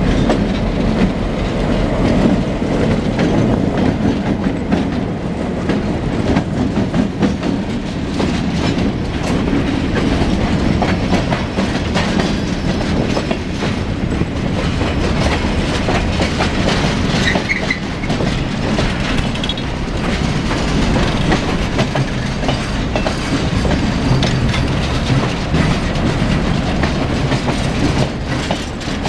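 Slow freight train rolling past at close range: a steady rumble of steel wheels on rail, with clicking and clacking as the cars' wheels cross the rail joints.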